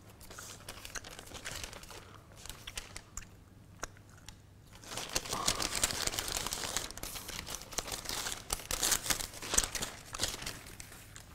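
Rustling and crinkling of a long paper receipt strip being unrolled and handled, louder from about five seconds in.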